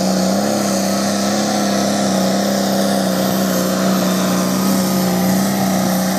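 Modified International Harvester pulling tractor's engine running flat out under full load as it drags a weight-transfer sled. It holds one steady high pitch with a slight waver throughout.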